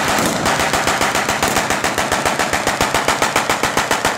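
Machine gun firing a long, continuous burst of blanks: a fast, even rattle of shots.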